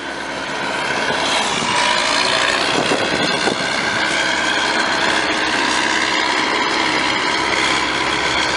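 A truck engine running steadily, getting louder over the first second or so and then holding even.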